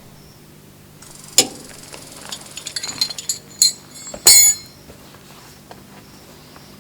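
Small metal parts clinking and rattling as fuel-line fittings are handled: a sharp clink about a second and a half in, a run of light rattles, then the loudest cluster of ringing clinks just past the middle.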